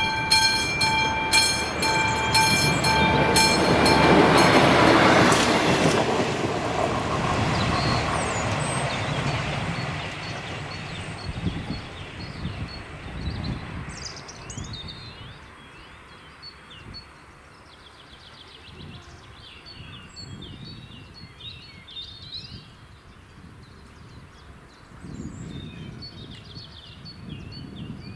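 Level-crossing warning bell of the classic type ringing in quick repeated strokes, cutting off about five seconds in as a passenger train runs over the crossing. The train's rumble swells and then fades away over the next several seconds, leaving birds chirping.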